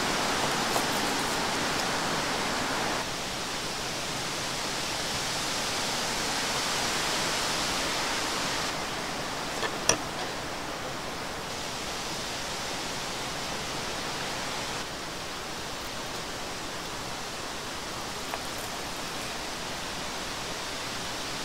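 Steady rushing outdoor noise that steps down in level a few times. A single sharp clink comes about ten seconds in as the metal knife meets the wooden cutting board.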